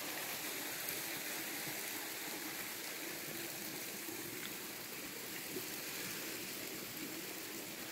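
Steady rushing of a forest stream or small waterfall, with a few faint ticks.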